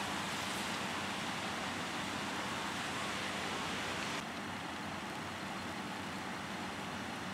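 Diesel railcar engine idling steadily with a low hum. A hiss over it drops away suddenly about four seconds in.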